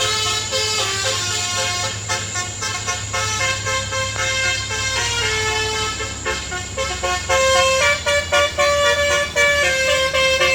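Telolet multi-tone musical horn on a Nissan truck playing a quick melody of changing notes, with the truck's engine running underneath.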